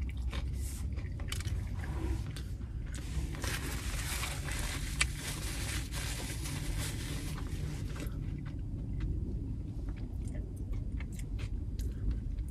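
Close-up chewing of a mouthful of sub sandwich, soft bread with lettuce and tomato, with many small wet mouth clicks over a steady low rumble. A paper napkin rustles against the face from about three to eight seconds in.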